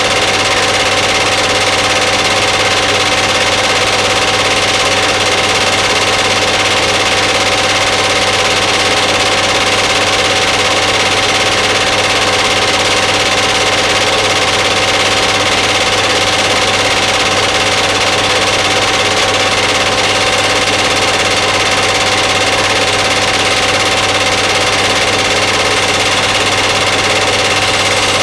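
Film projector running steadily: an even mechanical whir with a constant hum and a steady whine that never changes.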